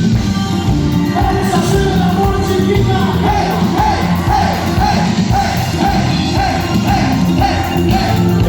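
Cumbia band music with a steady beat, a short melodic figure repeated over and over from about a second in.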